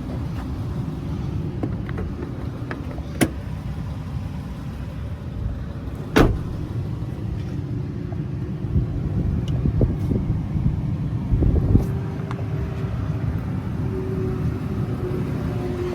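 A truck's engine idling as a steady low rumble, with two sharp knocks about three and six seconds in and a steady hum that comes in near the end.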